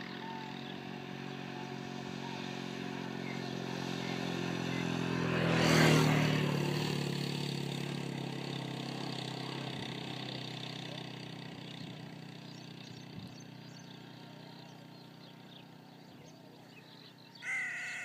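A motor vehicle's engine passing by: it grows louder over the first six seconds, peaks, then fades away slowly. Near the end a crow caws.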